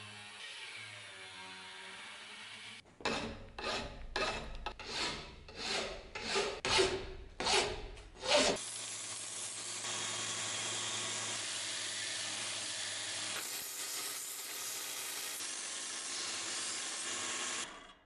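An angle grinder with a cutting disc runs on a small aluminium plate, its pitch sinking. About three seconds in comes a run of about nine loud rasping strokes, like hand filing on metal. Then a belt grinder runs steadily for about nine seconds and cuts off suddenly near the end.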